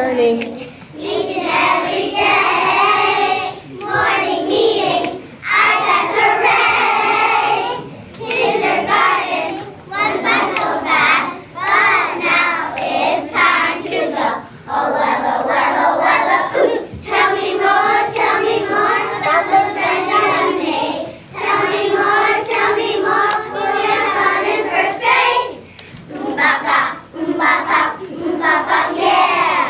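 A group of young children singing together as a class choir, in phrases with short breaks between them.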